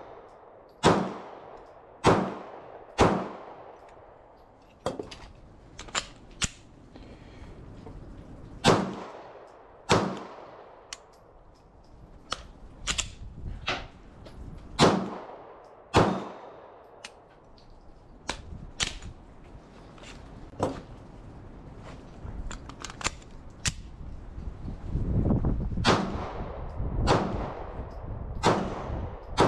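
Gunshots fired singly at irregular intervals, about a dozen loud ones with long echoing tails, and quieter clicks and knocks between them.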